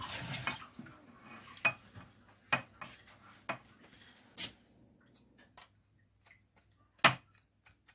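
Light clinks of small spice containers knocking against a dish as powdered spices are tipped into a bowl: a row of separate taps about a second apart, the loudest near the end.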